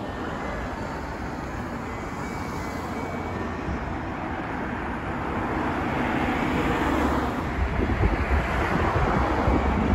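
Road traffic going past on a city street, getting louder from about halfway through as vehicles come near.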